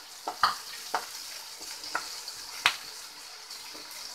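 Diced carrots, onion and green chilli sizzling in hot oil in a metal pan over high heat. A wooden spatula stirs them, scraping and knocking against the pan several times, once more sharply near the end.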